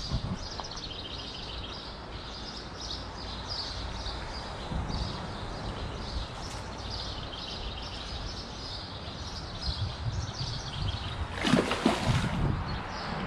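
Small birds chirping over a steady outdoor background hiss, with a brief louder rush of noise about a second before the end.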